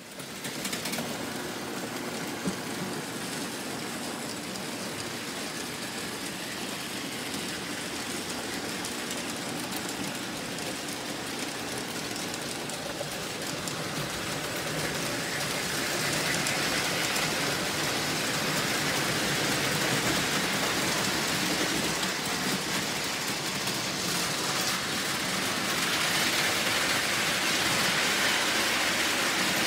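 Lionel O-gauge model trains running on three-rail track, a steady whirring rumble of wheels and motors. It grows louder about halfway through and again near the end.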